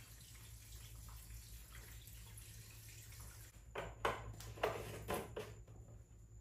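Gasoline trickling faintly as it is poured from a gas can into a pit bike's fuel tank. After about three and a half seconds the pouring gives way to a few sharp knocks and clatters, the loudest sounds here.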